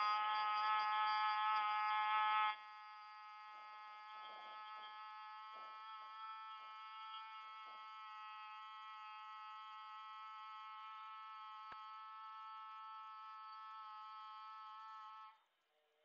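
A person's sustained closed-mouth humming in Bhramari (bumblebee breath) pranayama: a steady buzzing drone held on one pitch. It drops sharply in loudness about two and a half seconds in, carries on quietly, and stops shortly before the end.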